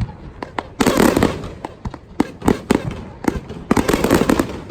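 Fireworks going off in rapid succession: a dense, irregular string of sharp bangs with crackling between them.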